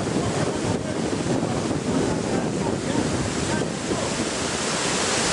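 Shallow, fast-flowing river rushing over rocks and rapids in a steady wash of noise, with wind buffeting the microphone.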